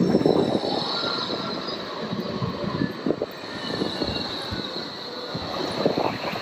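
Articulated BVG city tram passing close by on its rails: the wheels rumble and knock over the track, with a thin, high squeal of wheel on rail.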